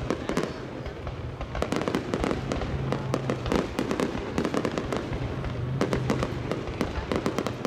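Aerial fireworks display: a dense, unbroken run of sharp bangs and crackling pops as shells burst overhead, many each second.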